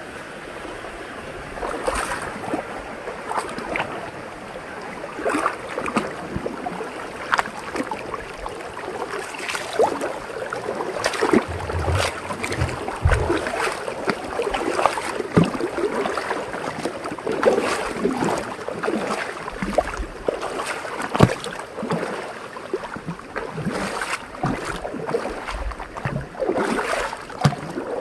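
Rain-fed waterfall: water splashing and gurgling over rocks, with dense irregular splashes and no letting up.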